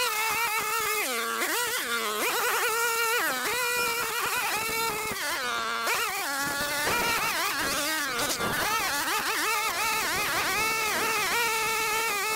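String trimmer engine revving up and down over and over as it cuts weeds, each burst of throttle rising to a high whine and then falling back to a lower idle.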